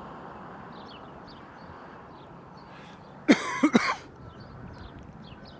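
A person coughs three times in quick succession, close and loud, about three seconds in, over a steady outdoor background hiss with faint high chirps.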